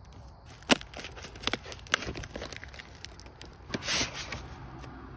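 Plastic packaging of a Haidilao self-heating hot pot crinkling and crackling as it is handled and unwrapped, in scattered sharp crackles with a sharp crack about a second in and a longer crinkle or tear near four seconds in.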